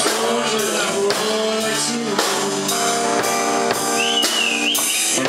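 Live rock band playing a slow ballad: a drum kit strikes about once a second over sustained guitar chords. A high wavering note sounds about four seconds in.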